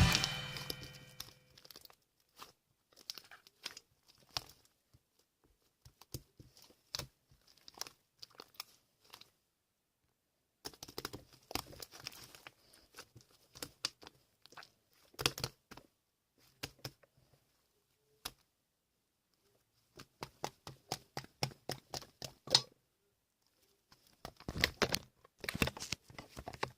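Scattered short clicks and rustling, like something being handled close to the microphone, in irregular clusters with short pauses between, after music fades out in the first moments.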